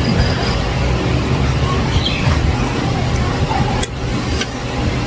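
Steady low rumble of road traffic, with two sharp clicks of a metal fork and knife against a plate about four seconds in.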